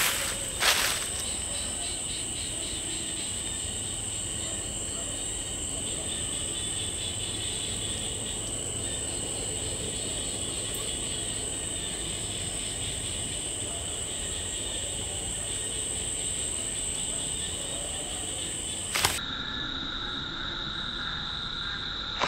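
Steady, high-pitched chorus of night insects in the forest. About 19 s in, a sharp click is heard and the chorus changes pitch.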